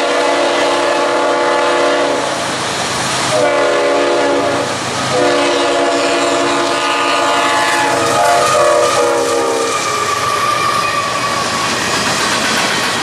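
A CSX ES44AH locomotive's air horn sounding a chord of several notes in a series of blasts for the grade crossing, the last blast ending about ten seconds in. The freight cars then roll past with wheel clatter and a faint wheel squeal.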